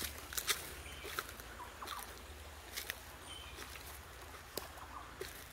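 Footsteps crunching on dry leaf litter and twigs along a rainforest path, irregular crackles with the loudest in the first half second. A few short, faint bird chirps come through.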